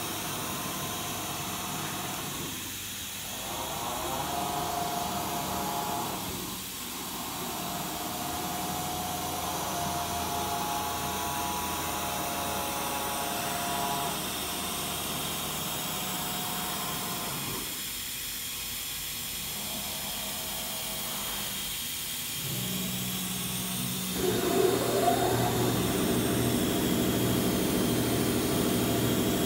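MultiCam 5000 Series CNC router running a warm-up cycle: the 16 hp Colombo spindle and 10 hp vacuum pump run steadily with a hiss, while the gantry's drive motors whine, the pitch shifting and dipping as moves start and stop. About 24 seconds in, a rising whine and the sound grows louder.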